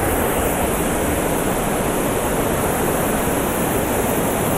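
A large waterfall in high flow, its falling water making a steady, loud rushing noise.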